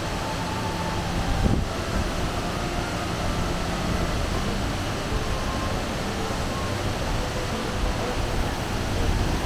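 Steady rushing roar of the Kjosfossen waterfall, with a few faint steady tones.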